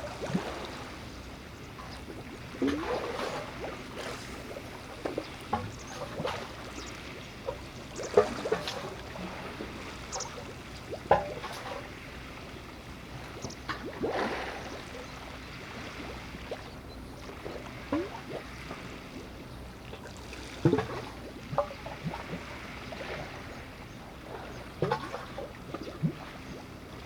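Water sloshing and lapping in irregular splashes, over a steady low hum.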